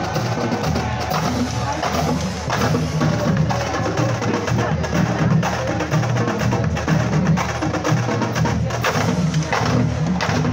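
Marching drumline playing a cadence: rapid snare drum strokes over tuned bass drums in a steady rhythm.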